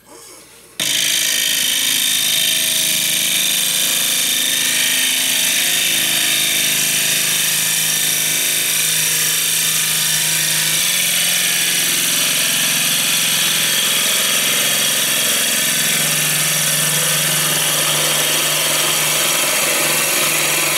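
Wood lathe running while a gouge cuts into the inside of a spinning sycamore bowl blank: a steady hiss of cutting over a low motor hum, starting abruptly about a second in.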